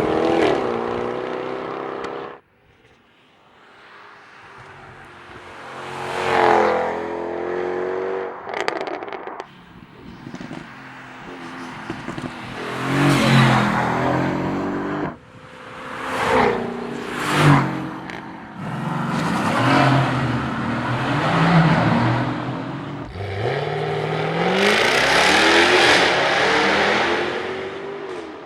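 V8 sports car engine revving and accelerating in a string of short runs, its pitch climbing and falling with each rev. The sound cuts off abruptly a couple of times.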